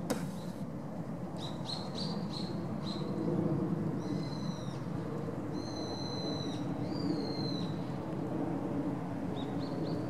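A bird calling over a steady low background rumble: a quick run of five or so short high notes, then three longer, level whistled notes, and a few short notes again near the end.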